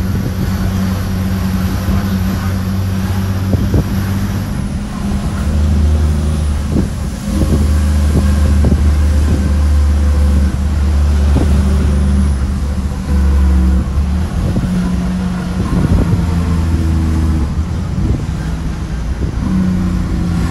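Shacman F3000 dump truck's diesel engine pulling the truck along, heard inside the cab. Its low note changes in steps several times as the driver works through the gears.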